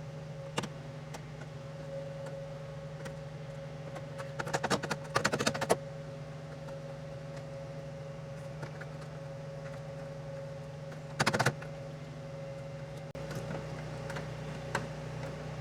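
Hand tools working a brake line fitting on a 1966 Mustang's front suspension: a quick run of metallic clicks and clinks about four to six seconds in, and a short burst of clicks near eleven seconds, over a steady low hum.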